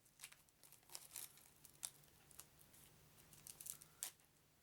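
Cellophane wrapping on a deck of playing cards being torn and crinkled open by hand: faint, irregular crackles.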